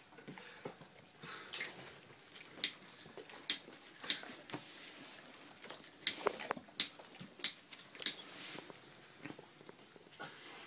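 A Weimaraner licking and chewing close up: irregular wet smacks and clicks, one or two a second.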